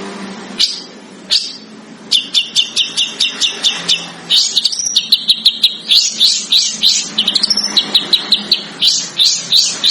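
A songbird singing a fast, rapid-fire 'besetan' run of sharp high chirps, about five notes a second, with a few upward-sliding notes mixed in. The run starts about two seconds in, after a few scattered single notes.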